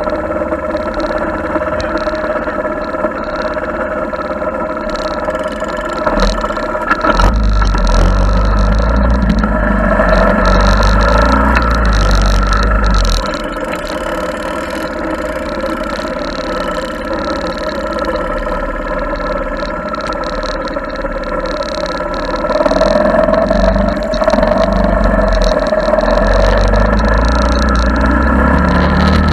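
Honda ATC70 three-wheeler's small single-cylinder four-stroke engine running while riding, its note rising and falling with the throttle. A heavy low rumble joins in about six seconds in, drops away around thirteen seconds, and returns from about twenty-two seconds.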